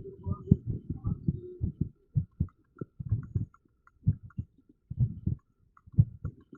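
Amplified heartbeat with an irregular rhythm: low, deep thuds that come in a quick crowded run for about the first two seconds, then settle into paired lub-dub beats roughly a second apart with uneven gaps between them.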